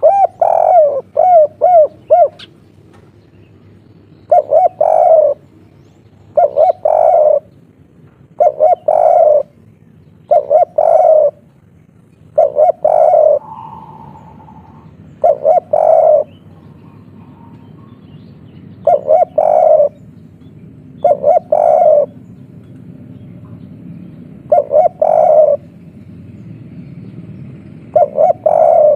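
Spotted dove cooing in its 'kuk 3' song style. A quick run of short rising notes opens it, then about ten loud, clipped coo phrases follow, each in two or three parts, roughly every two seconds, with longer pauses after the middle.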